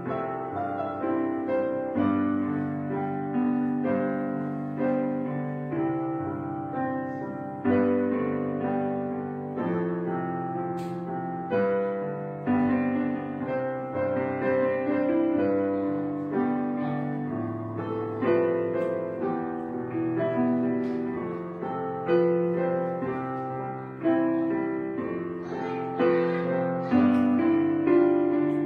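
Background piano music, with struck notes sounding and fading in steady succession.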